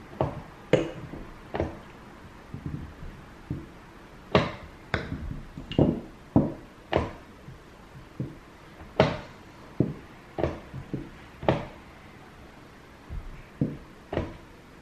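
Weighted chess pieces being set down on the board and hands tapping the chess clock during fast bullet play. It comes as a quick, irregular run of sharp knocks and taps, about one or two a second.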